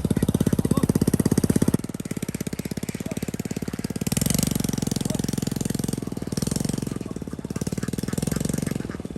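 A small engine running with a rapid, even pulse; it drops in level about two seconds in, then swells and fades several times.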